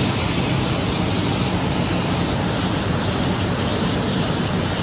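Gravity-feed automotive paint spray gun hissing steadily with compressed air as it lays down basecoat. A steady low drone from the shop's drum fans runs underneath.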